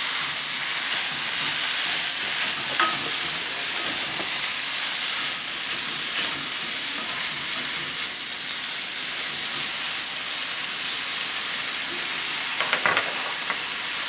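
Spinach sizzling steadily in a frying pan as its water cooks off, stirred with a wooden spatula. A few light knocks come about three seconds in and again near the end.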